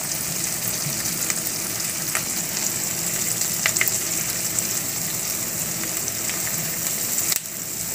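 Milk with ghee bubbling and sizzling steadily in a non-stick pan as it thickens to a khoa-like consistency, stirred with a silicone spatula, with a few faint clicks.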